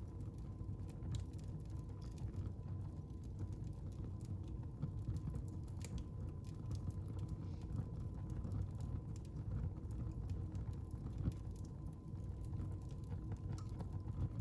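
Wood fire in a fireplace crackling: frequent small irregular snaps and pops over a low steady rumble.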